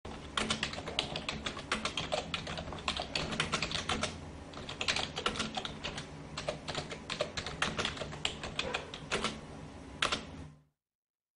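Typing sound effect: a rapid, irregular run of keystroke clicks over a faint low hum, accompanying text being typed onto the screen. It stops near the end.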